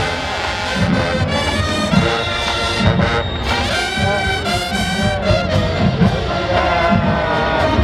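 Marching band playing loudly: trumpets, trombones and sousaphones sounding held chords over drum strokes.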